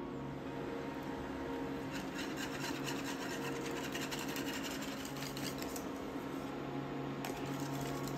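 Wire balloon whisk scraping and rattling in quick strokes against the sides and bottom of a stainless-steel saucepan, whisking a hot milk, egg-yolk and flour pastry cream as it thickens.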